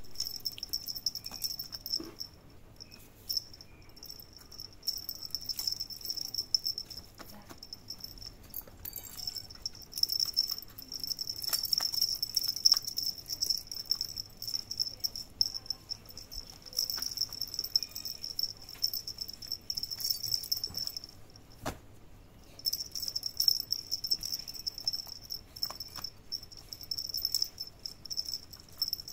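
Insects trilling in a steady high chirr that stops and starts every few seconds, with scattered light clicks and rattles from kittens batting feather-and-ball toys.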